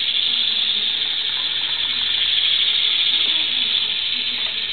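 Battery-powered GeoTrax toy locomotive running along its plastic track: a steady, high-pitched whir from its small motor and gears.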